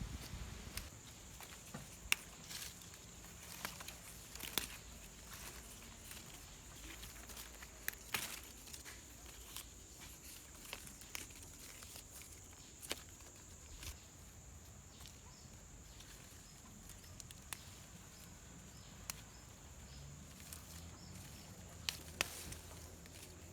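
Sparse, irregular crackles and snaps of dry leaves and twigs being stepped on or broken, over a steady faint high-pitched whine.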